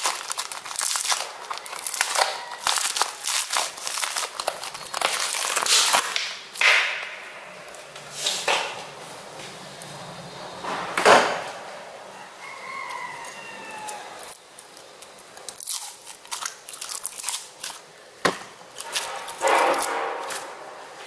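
Foam-bead slime (floam) squeezed and kneaded by hand, a dense run of crackles and pops as the beads are crushed. After about six seconds it turns to a few separate squelches as lumps of slime are pressed and dropped into a bowl.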